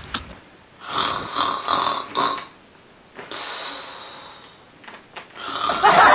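A person snoring loudly: an in-breath in several quick pulses, then a long breathy out-breath that fades, and another loud snore rising near the end.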